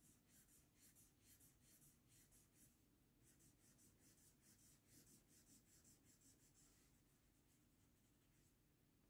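Very faint scratching of a felt-tip marker coloring back and forth on paper, about four strokes a second, fading over the last couple of seconds.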